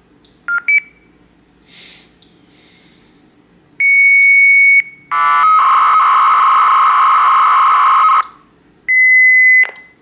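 Alarm-reporting tones on a landline heard through a telephone test set: the fire alarm panel's onboard POTS communicator is reporting to a central monitoring station receiver. First come two quick high beeps, then a steady high tone about a second long, then about three seconds of loud warbling data tones, and near the end a last steady high tone that cuts off suddenly.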